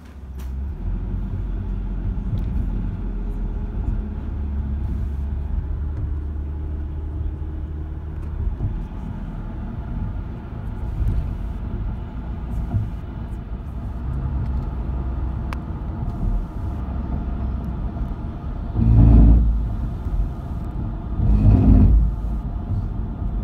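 Steady low road rumble of a moving van heard from inside the cabin. Near the end come two louder rushes about two and a half seconds apart.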